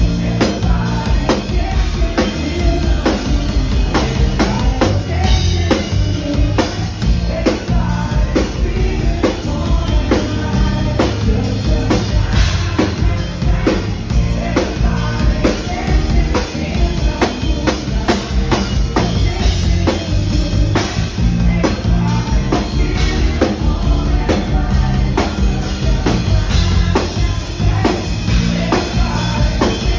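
Live rock band playing: a steady drum-kit beat with bass drum and snare, electric guitar and a lead singer's voice.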